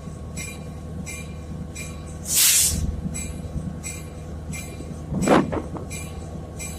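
Santa Fe 2926 steam locomotive's bell ringing steadily, about three strokes every two seconds, over a low rumble. A loud hiss comes about two and a half seconds in, and a short louder burst a little after five seconds.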